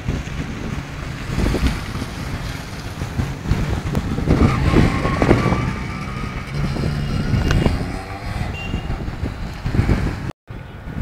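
Yamaha RX135's single-cylinder two-stroke engine running as the motorcycle is ridden past, louder and rising and falling in pitch in the middle as it comes close, then fading as it rides away.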